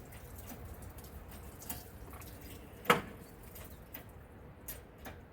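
Scattered light clicks and knocks, with one sharp knock about three seconds in, as the engine shifts on the hoist chain while being lifted out.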